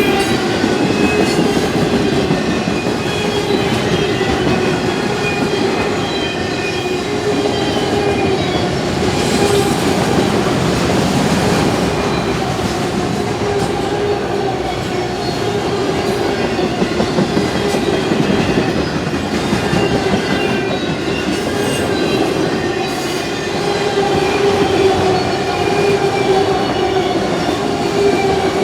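Freight train cars rolling past: steel wheels on the rails with clickety-clack and a steady, wavering squeal.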